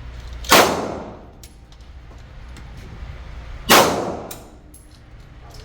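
Two shots from a Glock 45 9mm pistol, about three seconds apart, each followed by a short echoing decay.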